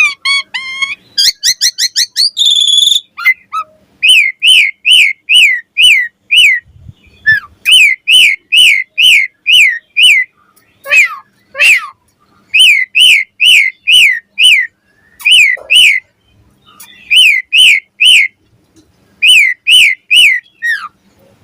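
Asian pied starling (jalak suren) singing: a quick chattering trill near the start, then loud whistled notes repeated in runs, each note dropping in pitch, about three a second, with short pauses between runs.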